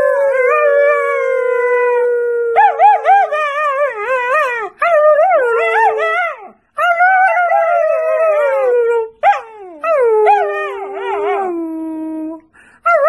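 German Shepherd puppy howling: a series of long howls, some sliding slowly down in pitch, others wavering up and down, with short breaks between them.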